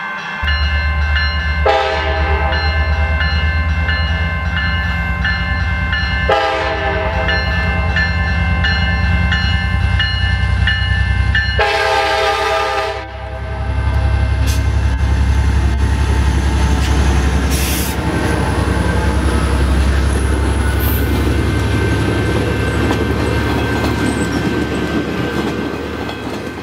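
A train horn sounds in three long blasts over the first half, over a loud steady low rumble of a moving train. After the last blast only the rumble carries on, fading near the end.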